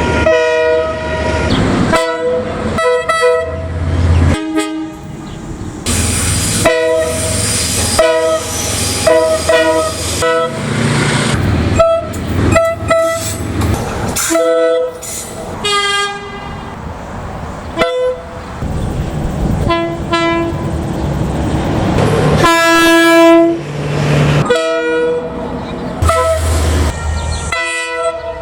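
A string of train horn blasts, each a chord of several notes: some short toots, some held for a second or two, joined by abrupt cuts from one train to the next. A low rumble runs beneath them.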